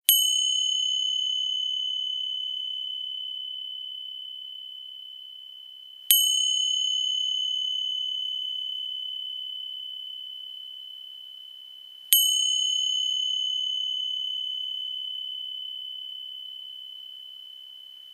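Small meditation bell struck three times, about six seconds apart. Each stroke rings with one high, clear tone that fades slowly, the last still ringing at the end.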